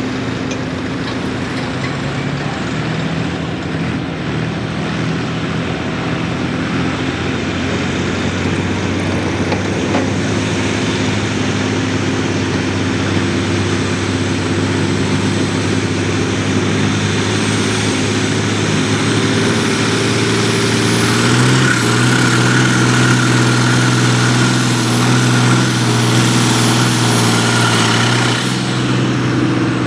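Deutz 130 06 farm tractor's diesel engine pulling a weight-transfer sled under heavy load, a steady deep drone that grows louder as the pull goes on, its pitch stepping up about two-thirds of the way through. A high whistle rises over the second half, and near the end the engine is throttled back.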